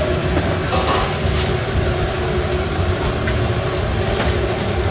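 Steady low rumble like an engine running, with a few light clicks and taps.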